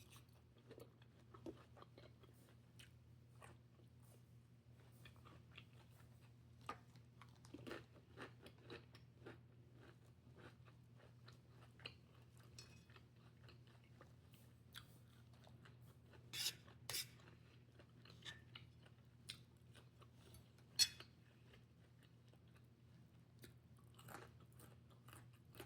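Faint mouth sounds of someone chewing and crunching food, with many small scattered crunches and a few louder ones past the middle, over a steady low hum.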